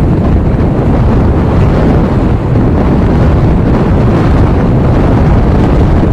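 Strong, steady wind buffeting the microphone: a loud, low rumbling roar of gusts around 30 mph.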